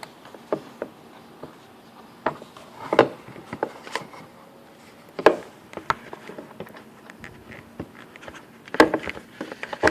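Irregular clicks, taps and rubbing from handling a plastic taillight assembly and its wiring harness, with sharper knocks about three, five and nine seconds in.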